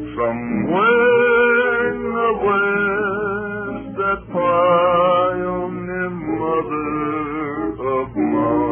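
A man singing long, held notes with vibrato, sliding up into each one, with an acoustic guitar accompanying him. It is an old recording with a narrow, muffled sound.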